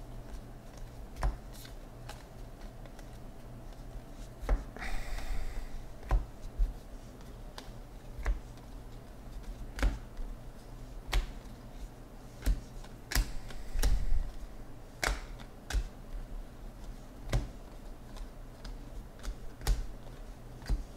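Cardboard trading cards being flipped through by hand, one card at a time: a sharp click each time a card is slid off the stack, coming irregularly about once a second. There is a brief rustle about five seconds in.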